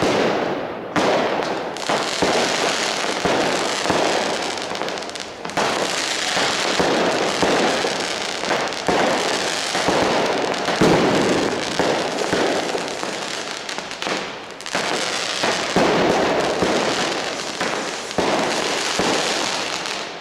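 New Year's Eve fireworks: a dense, continuous barrage of firecrackers and rocket bursts, with sudden loud bangs every second or two over a constant crackle.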